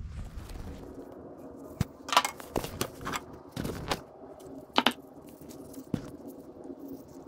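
A series of short knocks and scrapes, as of things being handled, loudest about two and five seconds in, over a faint steady hum.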